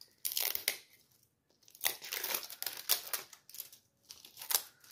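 Thin plastic wrapping on a plastic surprise-ball capsule crinkling and tearing in short, irregular bursts as its peel-off zipper strip is pulled away by hand; the strip is not peeling cleanly.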